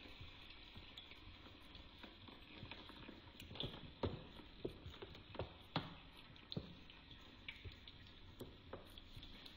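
Spatula knocking and scraping against a wok as pieces of raw goat meat on the bone are stirred into fried spice paste, with a faint sizzle underneath. The knocks are irregular, starting about three and a half seconds in, loudest around four and six seconds.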